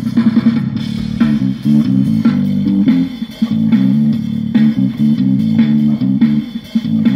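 Guitar played solo, picking a quick, repeating riff of low notes.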